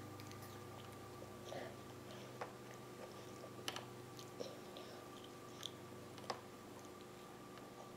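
A toddler chewing a mouthful of apple: a few scattered soft clicks and mouth smacks over a steady faint hum.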